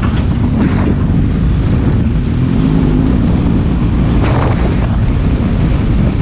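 Wind buffeting the microphone over the steady drone of a motorcycle engine and tyre noise on a rough dirt road, with a brief rattle about four seconds in.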